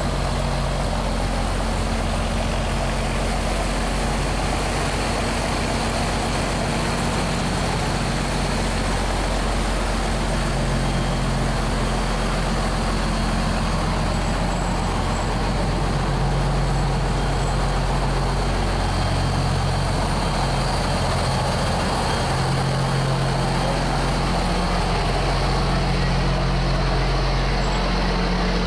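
A sand-laden motor barge's diesel engine runs steadily at close range, with water churning along its hull.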